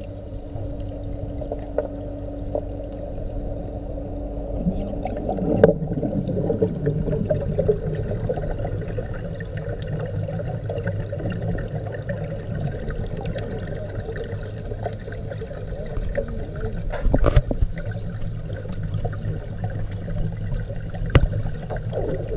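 Muffled water noise picked up by a camera held underwater: a steady low hum under a churning wash, with a few sharp knocks, a cluster of them near the end.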